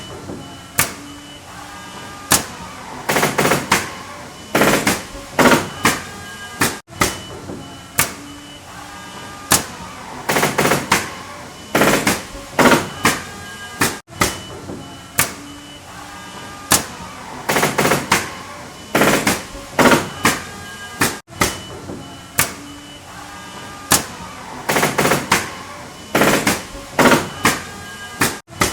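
Pneumatic nail gun driving nails into wood: sharp single shots and quick bursts of several shots, over a steady background hum. The same run of shots repeats about every seven seconds.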